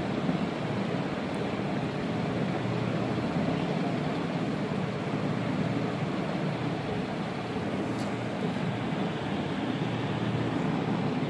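Steady rushing noise of sandstorm wind blowing past the building.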